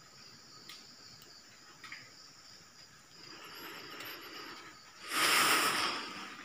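Night insects, crickets, trilling steadily in several high tones, with a few faint clicks. About five seconds in comes a loud hissing rush of noise lasting about a second, after a softer rush a little before it.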